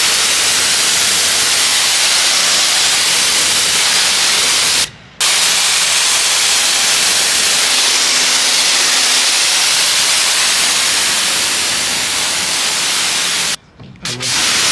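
Pressure-washer gun blasting a jet of water onto a metal diamond-plate trailer deck: a loud, steady hiss of spray. It cuts out briefly about five seconds in and again near the end.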